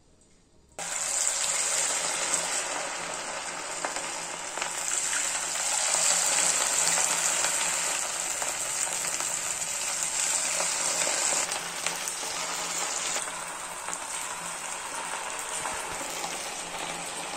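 Batter-coated cauliflower florets sizzling as they deep-fry in hot oil. The sizzle starts suddenly about a second in and eases slightly about two-thirds of the way through.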